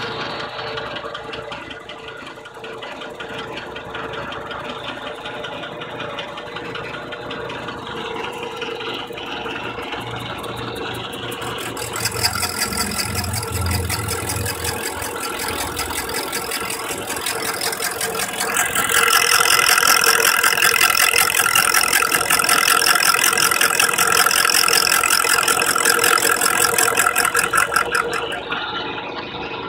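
A 1958 South Bend metal lathe runs on power feed, its motor and gearing giving a steady hum and rattle, while the tool cuts a spinning half-inch Lexan disc. The cutting gets louder about twelve seconds in and is loudest and high-pitched from about nineteen seconds. It stops a couple of seconds before the end, leaving the lathe running.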